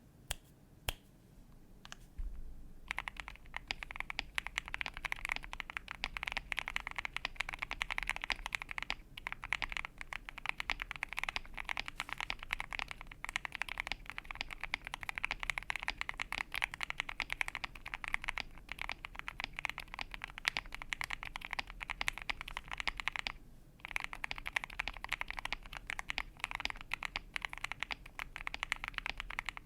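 Fast typing on a foam- and tape-modded Keychron Q6 metal full-size keyboard with lubed Gateron G Pro 2.0 Silver linear switches on a PC plate and cherry-profile PBT keycaps: a dense, continuous run of keystrokes. A few separate clicks come first, the steady typing starts about three seconds in, and there is a short pause about 24 seconds in.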